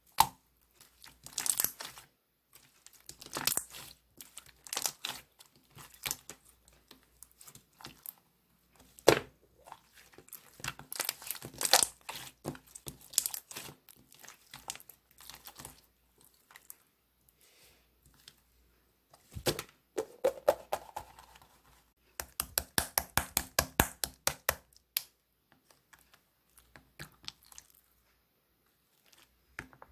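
Slime being played with by hand: stretched, pressed and poked, giving irregular crackling pops and snaps. About two-thirds of the way through comes a quick run of pops, several a second, for a few seconds.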